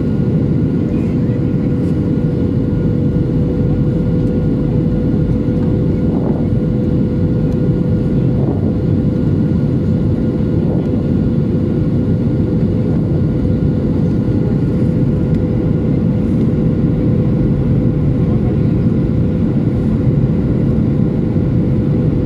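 Steady cabin noise inside a Boeing 737-800 in flight: the even drone of its CFM56-7B turbofan engines and the airflow, with a steady hum tone running through it.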